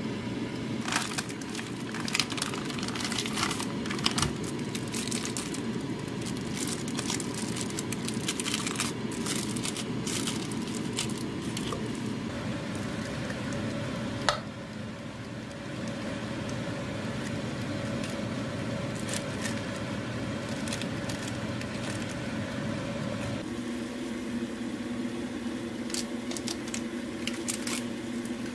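A plastic food bag crinkles and kitchen tongs click as fish cakes are pulled out, with many sharp crackles over the first half. A knife then cuts on a wooden chopping board. Near the end a pot of water is at a rolling boil. A steady fan-like hum runs underneath.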